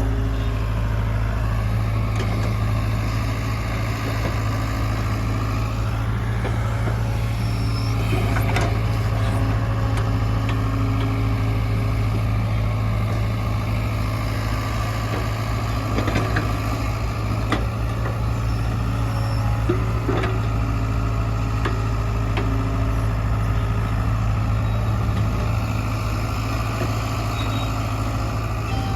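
Heavy diesel engine of a JCB backhoe loader running steadily under work, with a few sharp knocks now and then.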